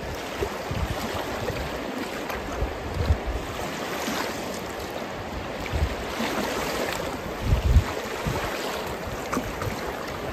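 River water running and washing against a sandy bank, with wind buffeting the microphone, heaviest about three quarters of the way through.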